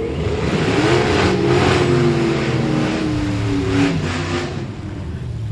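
Twin-turbo big-block V8 in a Divco milk truck drag racer, running down the strip. Its engine note climbs about a second in, then sinks steadily as the truck coasts.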